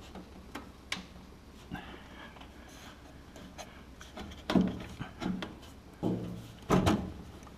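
Plastic overhead speaker-and-gauge panel being pushed and shifted into the ceiling of a Bobcat skid-steer cab by hand: scattered light clicks and rubbing, with a few louder knocks in the second half.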